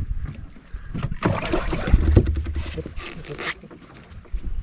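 Knocks and rustling of gear being handled in a bass boat, with wind rumbling on the microphone; busiest from about a second in until past three seconds, then quieter.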